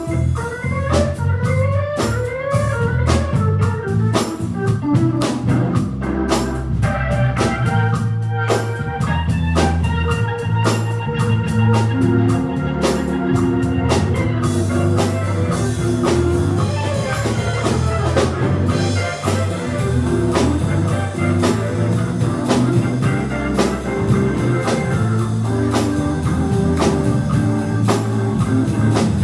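Instrumental band music: organ over bass notes and a drum kit keeping a steady beat.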